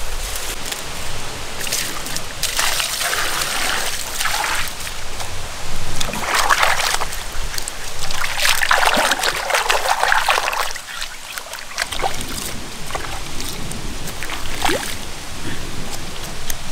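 Water splashing and sloshing in a stone mortar as its bowl is washed out by hand, in several uneven bursts.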